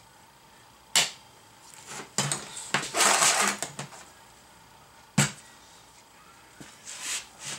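Locking C-clamp pliers snapping open and shut and a steel welding fixture being shifted on a steel welding table: a sharp metallic snap about a second in, a clatter and scrape of metal on metal around three seconds in, another sharp snap just after five seconds, then a few light knocks near the end.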